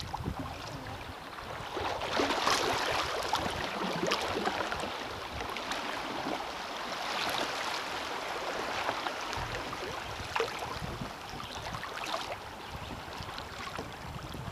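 River water rushing and splashing around a moving kayak in choppy current, with paddle blades dipping into the water every couple of seconds.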